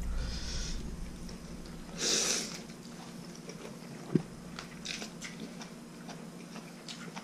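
A person slurping a mouthful of noodle soup once, about two seconds in, then chewing, with a sharp click a little after four seconds and a few small wet clicks after it.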